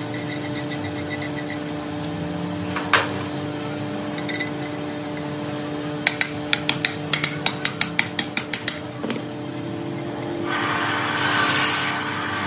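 Workshop tool work over a steady machine hum: a single sharp knock, then a quick run of about a dozen taps at roughly four to five a second, like hammer blows on metal, then a loud hiss near the end.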